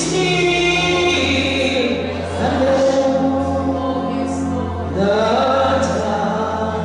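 Gospel singing by a choir, with sustained notes over a steady low accompaniment.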